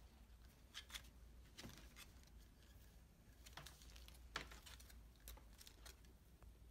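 Faint, scattered clicks and rustles of an unboxing: the LED strip reel and its packaging being handled and taken out of a cardboard box, over a low steady hum.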